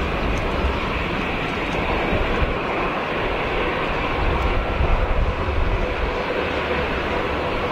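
Twin-engine jet airliner landing: a steady jet-engine rumble and roar that swells briefly as the main wheels touch down about five seconds in.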